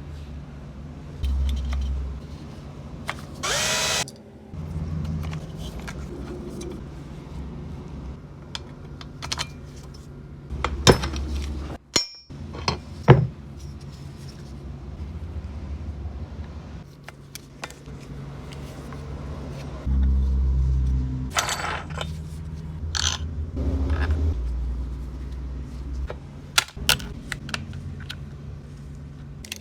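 Tools and metal parts handled: scattered sharp clicks, clinks and knocks over uneven low rumbling handling noise.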